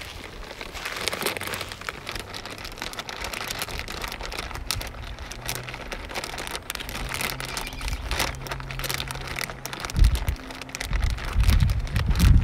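Plastic zipper bag holding plaster of Paris powder crinkling and crackling steadily as it is handled. A sudden low thump comes about ten seconds in, followed by low rumbling near the end.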